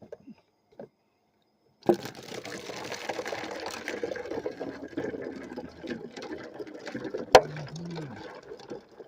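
Water being poured into a container, starting suddenly about two seconds in and running steadily. There is one sharp clack near the end.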